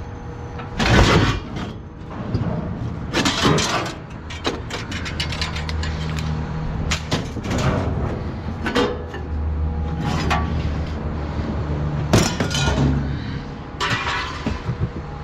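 Scrap bicycle frames clanking and rattling against each other as they are dragged out of a tangled pile, with about eight sharp metal bangs at uneven intervals. A low steady hum runs underneath through the middle of the stretch.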